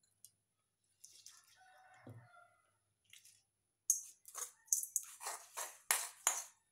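Metal spoon scraping the inside of an iron kadai, scooping out the last of the tempering oil and fried spices: a run of short, sharp scrapes at about three a second, starting about four seconds in.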